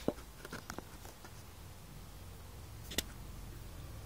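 Quiet room with a faint steady low hum, broken by a few light clicks and taps: two or three in the first second and a sharper single click about three seconds in.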